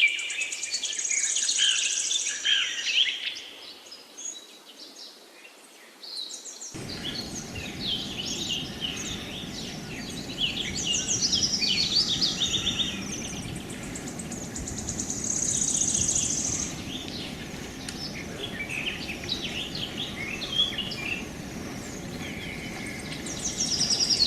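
Several birds chirping and singing in quick high trills and repeated chirps. The song thins out a few seconds in, and about seven seconds in a steady low rushing noise starts under the continuing birdsong.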